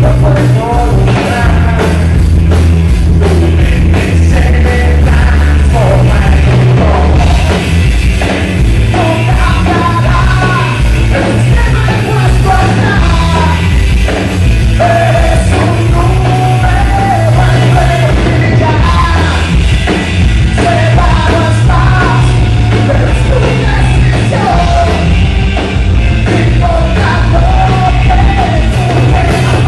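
Live rock band playing loudly, with a male singer singing and yelling over the band.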